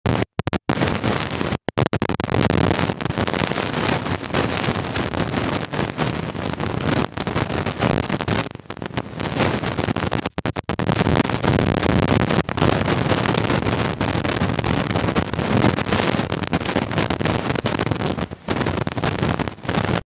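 Close-miked hand-eating sounds: fingers squishing rice and chicken gizzard curry on a steel plate, with chewing, a dense, near-continuous crackle full of small clicks.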